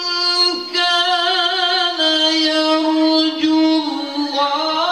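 A male qari's voice in melodic Quran recitation, high in register, holding long drawn-out notes with ornamented turns. The line steps down to a lower held note about two seconds in and climbs again near the end, with a brief catch less than a second in.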